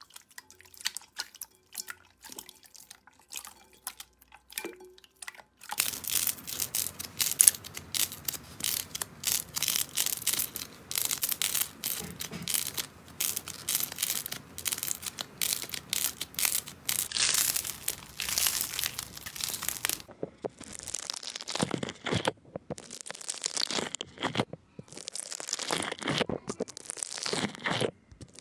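Slime being squished and pressed by hand. Faint wet clicks come first. About six seconds in, a long, dense run of crackling and popping begins. In the last several seconds there is a series of separate crunching squeezes, about one a second.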